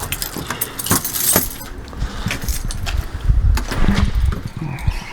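Keys jangling and small hard objects clinking as they are handled, with a few heavier thumps about three to four seconds in.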